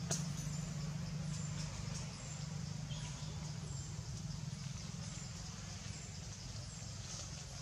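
Outdoor ambience: a steady low hum with a short high chirp repeating about once a second, and a single sharp click right at the start.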